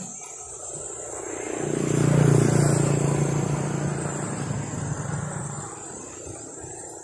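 A motor vehicle passing by: its engine and road noise build from about a second in, peak, and fade away by near the end.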